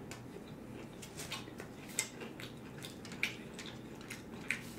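Quiet close-miked eating sounds: scattered small clicks and crackles of chewing and of fingers picking at food on a foil-lined tray, with a few sharper clicks about two, three and four and a half seconds in.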